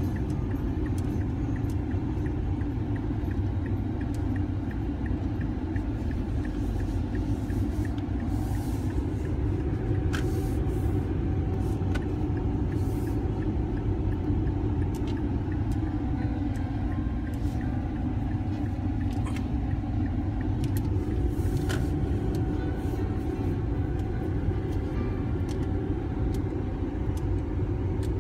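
Car interior road noise: the engine and tyres rumble steadily while driving on snow-covered streets, with a few faint clicks.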